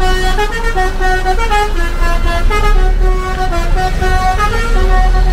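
A bus's multi-tone musical horn ('telolet' horn) playing a quick melody of stepped notes, over the low rumble of the bus's engine.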